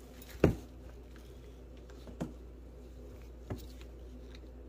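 Three brief knocks about a second and a half apart, the first and loudest about half a second in, over a faint steady low hum.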